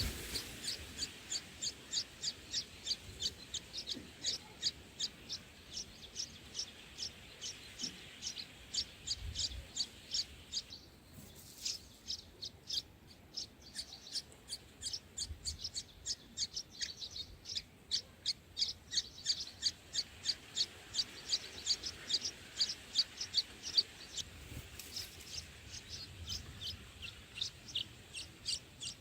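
A small bird chirping: short, high-pitched chirps repeated steadily about twice a second, with a brief pause about eleven seconds in.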